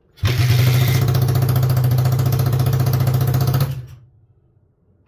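Suzuki DR125's single-cylinder four-stroke engine firing on a kick and running steadily for about three and a half seconds, then dying away. It starts but does not stay running.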